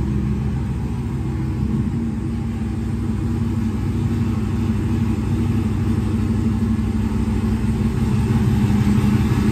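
Black Chevrolet Silverado pickup's engine idling steadily, shortly after a cold start. It gets a little louder near the end.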